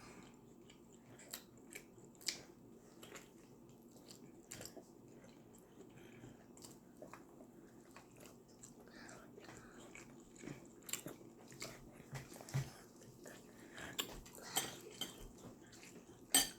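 Close-miked eating sounds: chewing and biting, with scattered wet mouth clicks and small crunches. A faint steady hum runs underneath.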